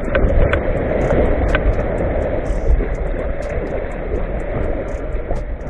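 Small shore-break waves washing around a kayak's bow as it comes in to the beach, with wind rumbling on the microphone.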